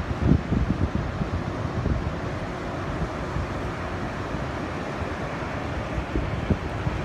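Wind buffeting the microphone in gusts, strongest in the first second and again near the end, over a steady rush of surf from typhoon swell.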